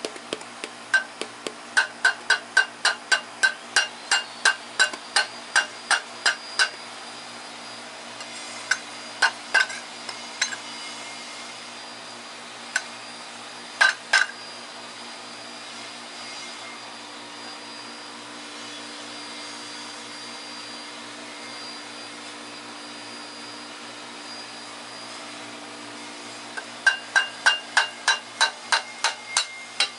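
Quick metal-on-metal hammer taps on a VR6 water pump that is seized in place with corrosion, knocking it loose. The taps come about three a second in a run over the first six seconds or so, then a few single blows, then another quick run near the end, over a steady hum.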